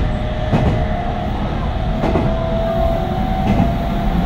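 Meitetsu 3100 series electric train car running, heard aboard: its Toshiba IGBT VVVF inverter and traction motors give a steady whine that rises slowly in pitch over a low rumble. The wheels click over rail joints about every one and a half seconds.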